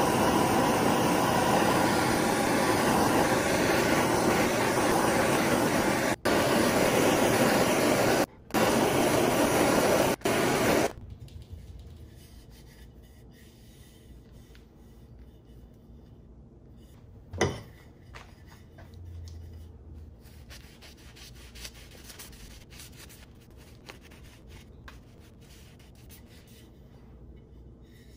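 Handheld gas torch burning with a steady loud hiss, dropping out briefly three times and shutting off about eleven seconds in. Afterwards there is only faint handling of the hatchet and one sharp knock.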